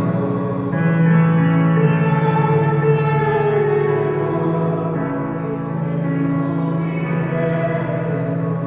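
Slow church hymn: long held notes on an electronic keyboard with singing.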